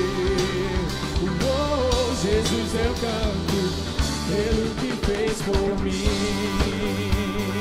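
Live worship band playing: electric guitar and drum kit, with a man singing a melody over them.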